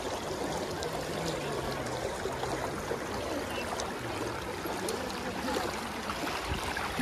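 Shallow, fast river water rushing and babbling over stones close to the microphone, a steady even rush.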